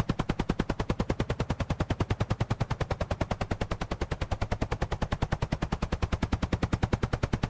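Helicopter rotor blades chopping at a fast, even beat, the blade sound alone without engine noise.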